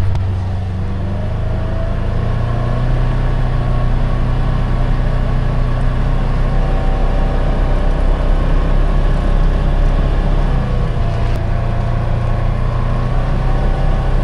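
Polaris Ranger 1000 XP side-by-side engine running steadily while driving, its pitch rising and easing slightly with the throttle.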